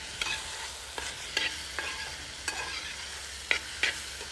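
Metal spatula stirring onions and tomatoes sautéing in oil in a metal pan: a steady sizzle with clinks and scrapes of the spatula against the pan about twice a second, each clink ringing briefly.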